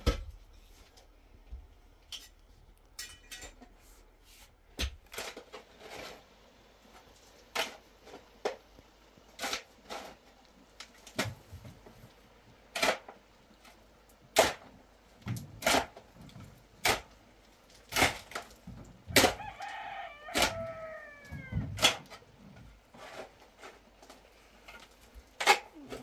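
A shovel scraping and striking into a heap of soil and stones, stroke after stroke, about one a second. About twenty seconds in, a rooster crows once.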